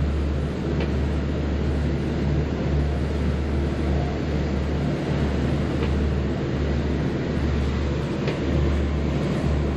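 Steady low drone of a Carver 504 motor yacht's twin diesel engines running under way, with a constant rushing noise over it.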